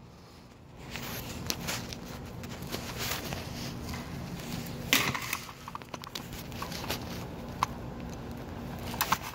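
Scattered soft knocks, clicks and rustles of someone moving about and handling a phone, over a faint steady hum.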